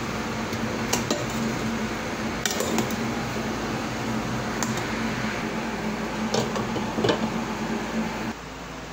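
Metal clinks of a ladle and a stainless steel lid against a stainless pot of boiling soup on a gas stove, about half a dozen sharp clinks over a steady hum and hiss. The lid is set on the pot near the end.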